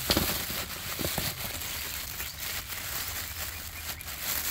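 Clear plastic bags crinkling and rustling as bagged parts and cables are handled and lifted out of a cardboard box.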